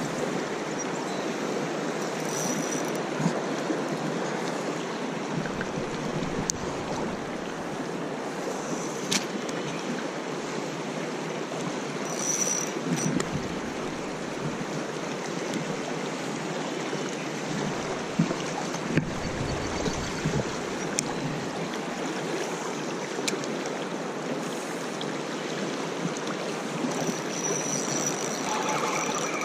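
Shallow river running over a stony riffle: a steady rush of flowing water, with a few faint clicks.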